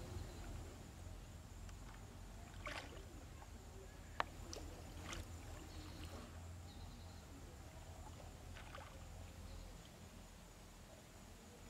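Faint water splashes and sloshing around a floating plastic-bottle fish trap as it bobs and jerks, with a sharp click a little over four seconds in, over a steady low rumble.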